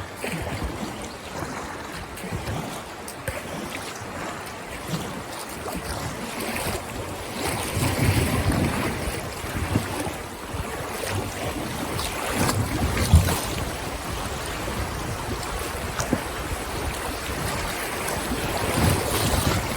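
Fast, high river water rushing and splashing around a kayak, with wind gusting on the microphone. A sudden loud hit stands out about thirteen seconds in.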